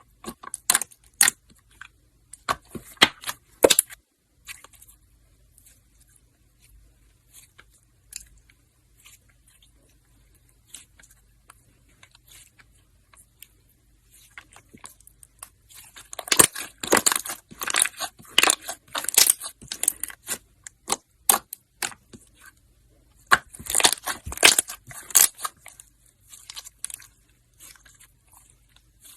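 Slime being squeezed and kneaded by hand, giving crackling, popping clicks: a few scattered pops at first, then two long runs of dense crackling in the second half.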